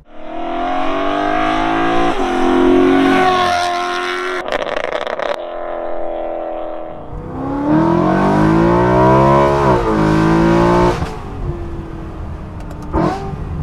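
BMW E93 M3's V8 with a full aftermarket exhaust revving hard up through the gears, its pitch climbing and dropping back at each quick upshift. About seven seconds in it comes past louder still, the pitch bending down as it goes by, then falls away.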